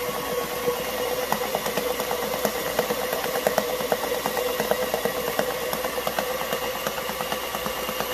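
KitchenAid Professional 5 stand mixer running steadily at a raised speed, its flat beater churning thick rice-flour batter in the steel bowl: a constant motor hum with rapid light ticking.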